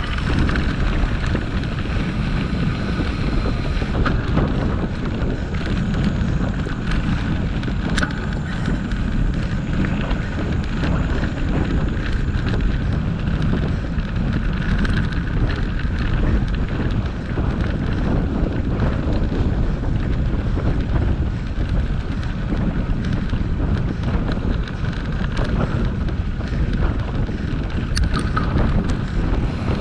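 Steady, heavy wind rumble buffeting the microphone, with a few faint sharp ticks.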